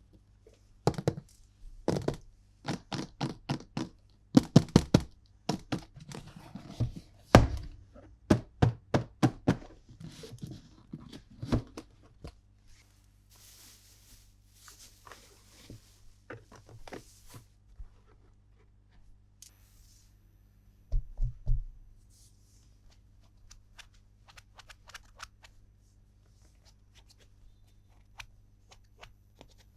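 Hands handling plastic toy parts and packaging: a quick run of clicks and knocks for about twelve seconds, then quieter rustling, and a short burst of knocks later on.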